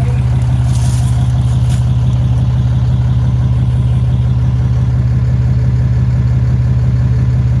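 An engine idling steadily at an even pitch, with no change in speed.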